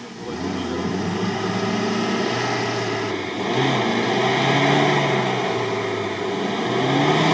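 UAZ Patriot's engine revving under heavy load as the 4x4 crawls through deep mud, its pitch rising and falling. It gets louder about three and a half seconds in and again near the end.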